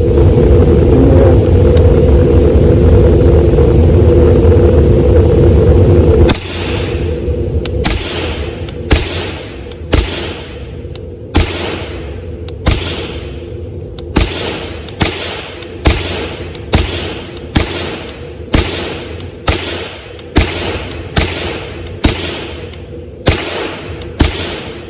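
A loud, steady rumble with a low hum cuts off about six seconds in. Then comes a steady string of some two dozen .22 LR rifle shots, about one every half second to one second, each with a short ringing echo: an AR-15 firing semi-automatically through a CMMG Bravo .22 LR conversion kit.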